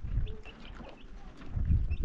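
Small birds chirping in short calls over dull low thumps and rustling from stones being handled and set on a dry-stone wall; the thumps are loudest near the end.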